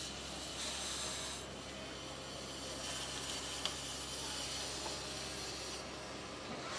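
Rumely steam traction engine hissing steam, the hiss swelling and fading over a steady low hum.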